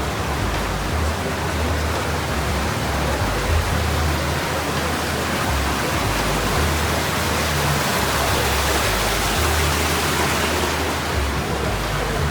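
Steady, loud rushing noise with no breaks, like water or wind, with background music's low bass notes shifting underneath.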